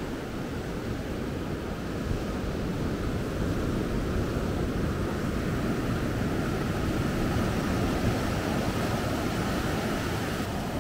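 Surf washing onto a sandy beach, a steady rushing noise with wind buffeting the microphone; it grows a little louder about two seconds in.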